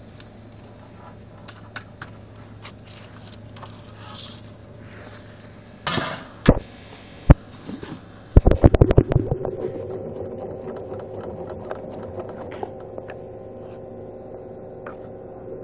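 Rustling and handling clatter at a counter, with a few loud scrapes and a sharp click about six to seven seconds in; about eight seconds in a rapid rattle starts and settles into a steady hum with several tones.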